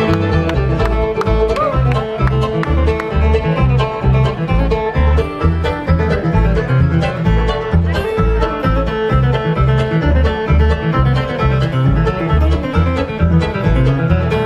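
A bluegrass band playing live and instrumental: flatpicked acoustic guitar and banjo over a steady low bass beat.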